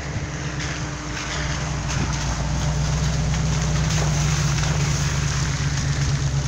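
Steady low rumble of wind on the microphone, growing louder about a second and a half in, over the hiss of a lit gas canister camp stove.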